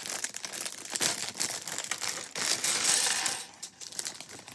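Loose Lego pieces rattling and clicking against each other, with crinkling of the clear plastic parts bag as it is opened and handled. It dies down after about three and a half seconds.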